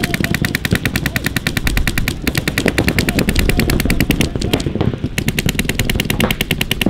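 Paintball marker firing a rapid, even stream of shots, more than ten a second, with a short pause about four and a half seconds in.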